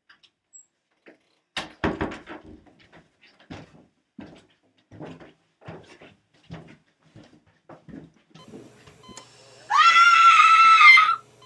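Footsteps knocking and thumping on a staircase, with a heavier thump about two seconds in. Near the end, a loud high-pitched scream that rises at its start and is held for about a second and a half.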